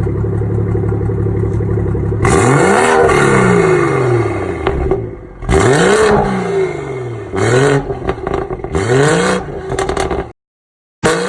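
2018 BMW 440i Gran Coupe's turbocharged 3.0-litre inline-six, fitted with an aftermarket downpipe and midpipe, idling and then revved about four times, the exhaust crackling and popping as the revs drop. The sound cuts off abruptly about ten seconds in.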